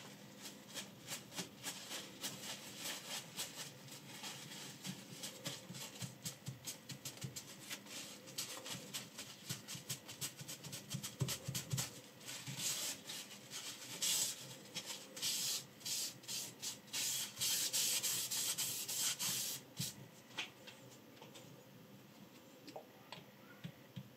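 Paper towel rubbed back and forth over a silicon-carbide oil sharpening stone, wiping it clean in quick, even strokes, about two a second. About halfway through, it gives way to a denser stretch of rustling and rubbing that stops a few seconds before the end.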